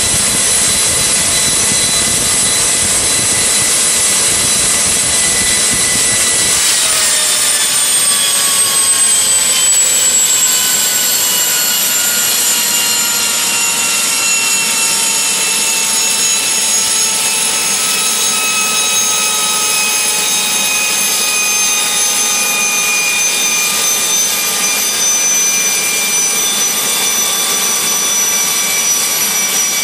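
AiResearch Garrett GTP70-9 turboshaft engine running with a loud high whine over a rumble. About six and a half seconds in, the low rumble drops away and the whine begins falling slowly and steadily in pitch as the turbine slows down.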